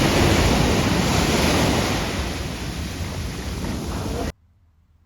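Sea surf washing on the beach, a loud steady rush with wind buffeting the microphone; it cuts off abruptly about four seconds in.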